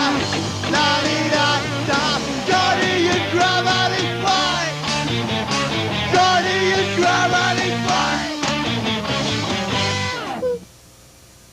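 Rock band playing live with a singer, guitar and bass; the music cuts off suddenly near the end.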